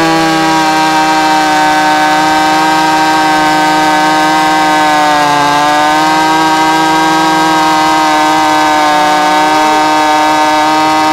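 Stihl 026 two-stroke chainsaw at full throttle cutting through a log, its engine pitch held steady under load.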